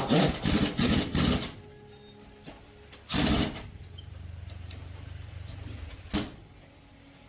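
Repeated short bursts of mechanical noise: four quick bursts at the start, another about three seconds in, then a low hum and a single sharp click near the end.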